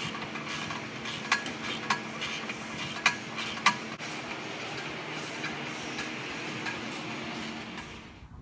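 Hand tools clinking against metal engine parts, four sharp clinks in the first four seconds over a steady low shop hum.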